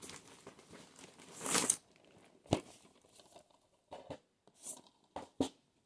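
Plastic DVD cases being handled: a rustling slide that swells about a second and a half in, then a few light clicks and knocks as the cases are moved.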